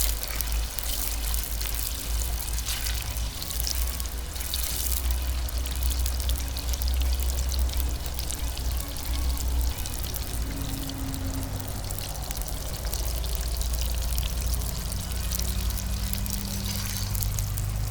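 French fries deep-frying in hot oil in a kazan: a steady bubbling, crackling hiss, over a steady low rumble.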